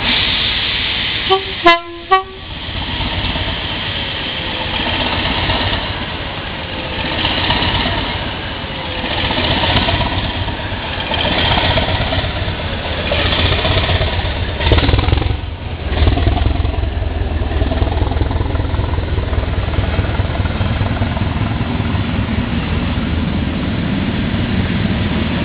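Northern Ireland Railways 80 class diesel-electric multiple unit, its English Electric diesel engine running, gives two short horn blasts about two seconds in, then powers away from the platform, its engine and wheels building into a heavy low rumble from about halfway as it accelerates past.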